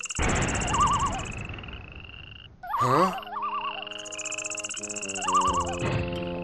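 Cartoon nature sound effects of frogs croaking, with high chirping and warbling calls repeating alongside. A noisy rush comes in just after the start and again near the end.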